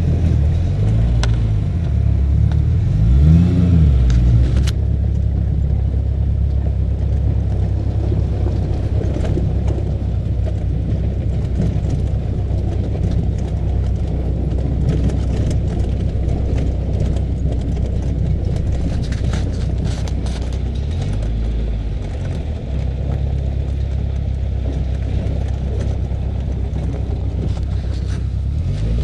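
Off-road buggy's engine running steadily while driving a rough track, revving up and back down a few seconds in and again near the end. Scattered clicks and rattles come through over the engine.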